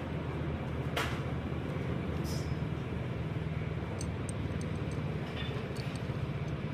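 A steady low mechanical drone, like a motor or engine running, with a brief sharp noise about a second in and a few light ticks later.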